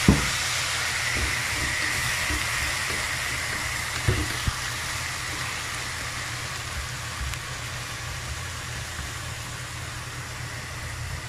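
Hot water sizzling and steaming in a pan of diced raw banana, a steady hiss that slowly dies down. A wooden spatula knocks against the pan at the start and twice about four seconds in.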